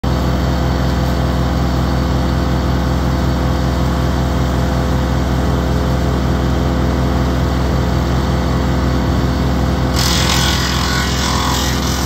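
Kubota compact tractor's diesel engine running steadily, driving the wood chipper hitched behind it. About ten seconds in, a louder rasping hiss joins it.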